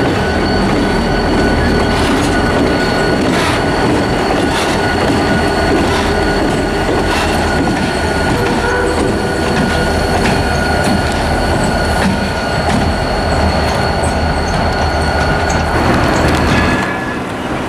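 Reading & Northern GP39RN diesel locomotives passing at close range: engines running and wheels rolling over the rails, with a steady high-pitched wheel squeal on the curve. The sound drops off about a second before the end.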